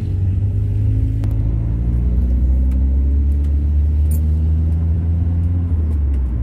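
Volkswagen Kombi's engine running under way with a strong low road rumble, heard from inside the cabin; its note climbs a little over the first couple of seconds, then holds steady.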